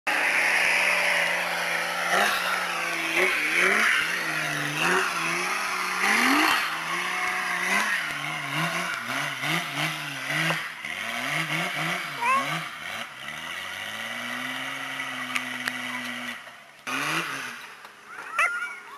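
Nissan GQ Patrol engine revving hard up and down, over and over, as the four-wheel drive charges up a steep rutted dirt hill. About two-thirds of the way through it holds steady revs for a few seconds, then drops away near the end.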